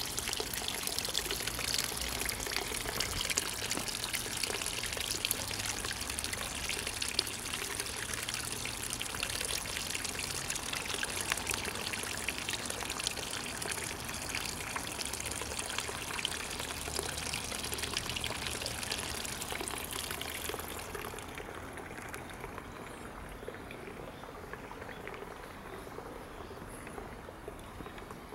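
Water trickling and splashing steadily into a pond, a dense crackling patter that turns fainter and duller about two-thirds of the way through.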